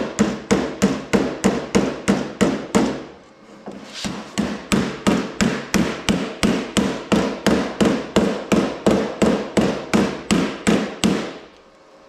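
Hammer tapping steadily on the steel lip of a door patch panel, about four light blows a second, folding the hem flange over with the panel supported from behind. The blows pause briefly about three seconds in, resume a second later, and stop shortly before the end.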